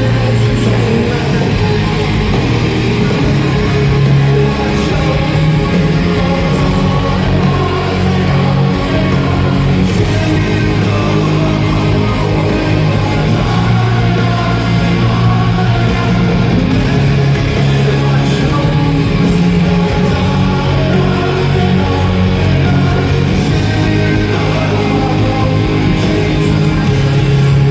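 Live rock band playing loud, heavy guitar rock: distorted electric guitars, bass and drums, with a voice singing over them.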